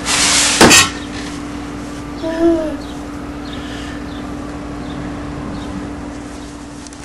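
A loud rustling burst with a sharp knock in the first second, then a short, slightly bending vocal sound from a toddler about two seconds in, over a steady low hum.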